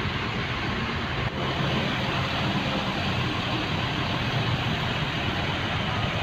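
Steady engine drone and road noise of a coach bus on the move, heard from inside the cabin.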